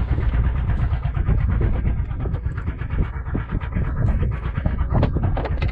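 A fishing boat's motor running with a steady low rumble, with a couple of sharp knocks on the boat near the end.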